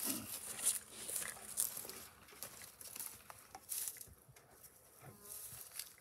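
Wooden beehive boxes and lids being handled: scraping, light knocks and rustling through the first few seconds, then quieter.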